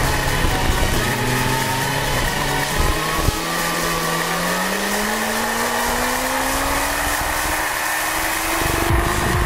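Sport motorcycle engine under hard acceleration on a race track, the revs dropping at a gear change about three seconds in and then climbing steadily, with wind rushing over the bike-mounted camera.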